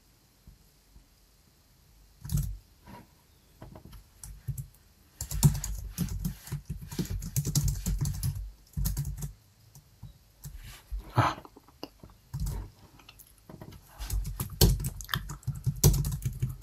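Typing on a computer keyboard: quiet for about the first two seconds, then quick, irregular key clicks that thicken into a steady run of typing.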